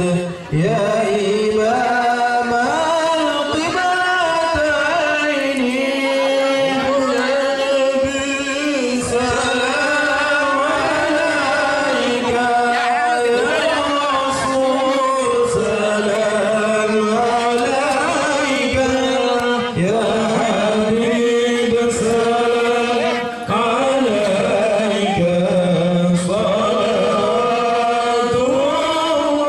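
Sholawat, Islamic devotional praise chanting, sung continuously with long, wavering melodic lines that slide from note to note.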